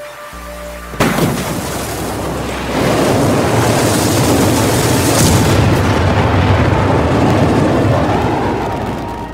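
Rocket launch: the engines ignite with a sudden blast about a second in, then a loud, steady roar of rocket exhaust that grows louder a couple of seconds later and eases off near the end.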